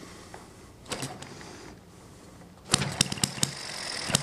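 A vertical hit-and-miss model engine being flicked over by hand about a second in, then catching near three seconds in. It fires in a quick run of sharp, irregular pops, with a steady high whine underneath.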